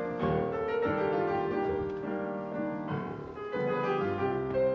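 Solo piano music in a slow, classical style: sustained chords ring on, with new notes struck about a quarter second in and again around three seconds in.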